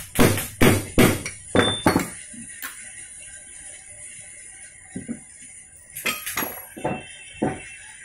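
Hammer blows on a steel pipe drift seating a bearing on a Kawasaki 175 motorcycle crankshaft: a quick run of sharp metal clanks in the first two seconds, then a few scattered clanks later.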